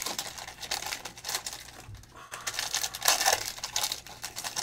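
Foil wrappers of Panini Select football card packs crinkling irregularly as they are handled. The crackling is stronger near the start and again about three seconds in.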